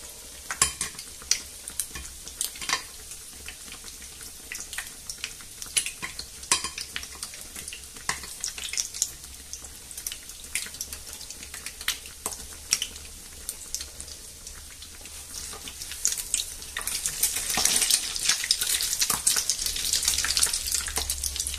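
Torrijas, bread slices soaked in milk and egg, frying in hot oil in a pan: a steady sizzle with sharp crackles and pops. The sizzling grows louder and busier near the end.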